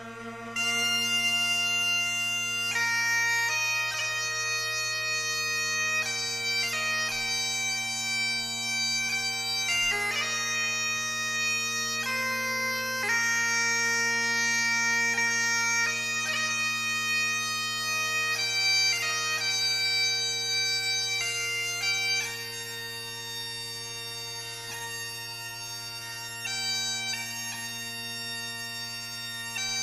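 Scottish bagpipes playing a slow tune. The steady drones sound throughout, and the chanter carries a melody of long held notes, starting about half a second in.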